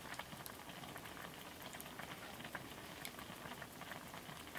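Rabbit stew simmering in a cast-iron Dutch oven on the fire: a faint, steady bubbling with many small pops.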